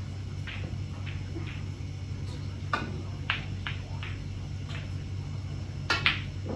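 Snooker balls clicking as shots are played: a handful of sharp clicks of cue tip and balls striking each other, with a louder pair of knocks near the end, over a steady low hum.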